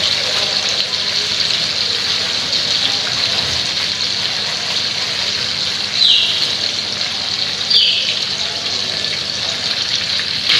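Marinated shrimp sizzling steadily in hot oil in a frying pan, a constant high hiss. Two short high chirps falling in pitch sound about six and eight seconds in.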